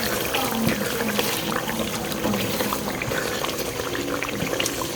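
Tomato-and-oil stew simmering in a pot, bubbling and sizzling steadily with many small pops.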